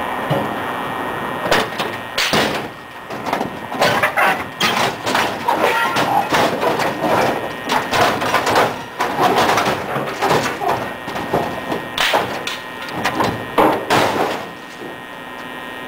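Scrap appliances (an old stove and dryer) scraping and clanging as they are slid off onto the ground, an irregular run of metal knocks and scrapes that eases off near the end.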